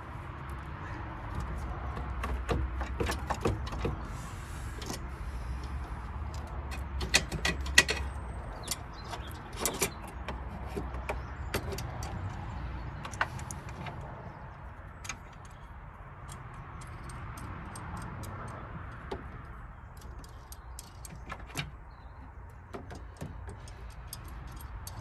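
Scattered metallic clicks, taps and clinks of a universal battery clamp's hooks, bar and wing nut being fitted and adjusted around a car battery, busiest about a third of the way in, over a steady low rumble.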